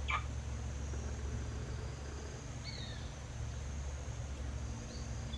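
Baby woolly monkey hiccuping: short, high, squeaky hics a few seconds apart, some dipping slightly in pitch, over a steady low hum.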